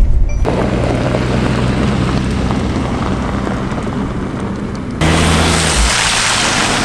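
Mercedes E-Class All-Terrain estate driving on a wet gravel dirt track: a low engine hum under the rumble and crunch of tyres on gravel. About five seconds in it switches abruptly to a louder, hissier spray of gravel and grit from the wheels as the car passes close by.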